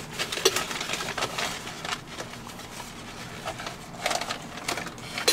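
Crumpled white packing paper crinkling and rustling as a wrapped object is unwrapped by hand, with many small irregular crackles.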